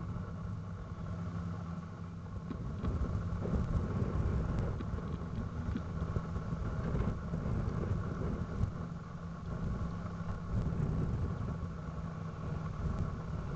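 Cat 160H motor grader's diesel engine running steadily as the grader works the dirt, a low, even hum.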